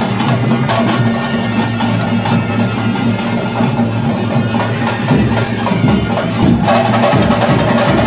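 Traditional ritual music led by drums and percussion, a dense steady beat; a held pitched tone, like a wind instrument, joins about two-thirds of the way through.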